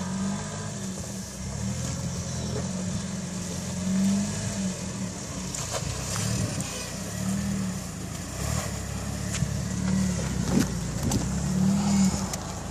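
Jeep Wrangler engine running at low revs as it crawls over boulders, swelling in short bursts of throttle several times, with a few knocks.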